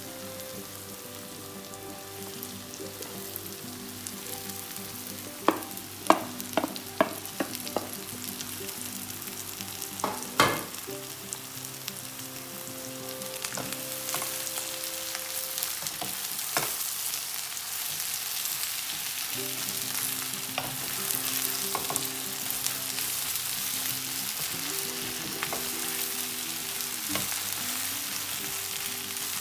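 Red and green pepper strips sizzling in a hot oiled wok as they are stirred with a wooden spoon, with a few sharp knocks between about five and eleven seconds in. The sizzling grows louder in the second half as the pan heats up again.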